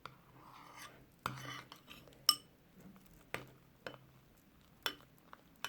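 A utensil clinking and tapping against a bowl at irregular intervals while a slime mixture of glue and shaving foam is stirred. The sharpest clink rings briefly about two seconds in.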